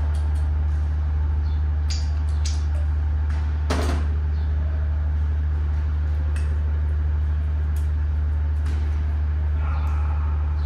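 A steady low hum under a few light clicks, with one sharper knock about four seconds in, from an oil can and a piston being handled.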